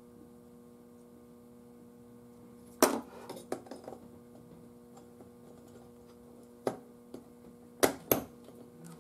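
Sharp clicks and glassy clinks of vacuum tubes being gripped and worked at their sockets in a radio chassis: a few separate knocks, the loudest about three seconds in and two close together near the end. A steady low mains hum runs underneath.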